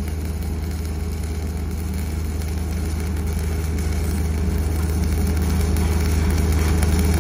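Stick-welding arc burning steadily with an even crackle, over a loud, steady low machine hum.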